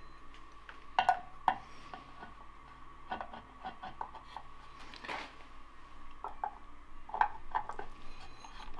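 Light metallic clicks, clinks and scrapes of small steel parts being handled: a clutch drum fitted onto a sprocket shaft on a steel plate. Several sharp clicks come about a second in, with more near the end.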